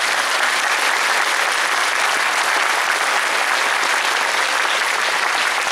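Audience applauding, a dense, steady clapping from a large crowd.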